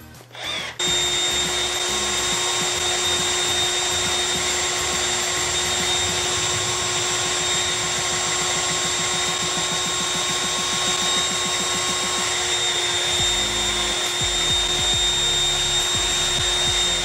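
Cordless drill starting about a second in and running steadily with a constant whine, its bit boring a hole into the plastic neck of a bottle.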